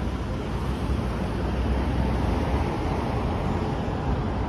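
Outdoor street noise: wind buffeting the microphone with a steady low rumble, over road traffic passing.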